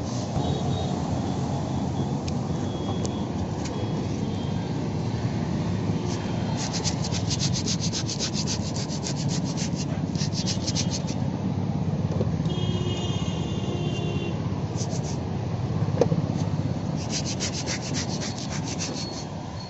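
80-grit sandpaper rubbed back and forth by hand over a Maruti Suzuki Alto's body panel, leveling scratches before putty goes on. It is a continuous scraping, with runs of quick, rhythmic strokes.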